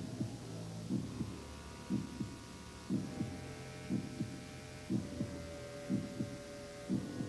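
Heartbeat sound effect: a double thump about once a second over a low, steady droning hum with a few held tones.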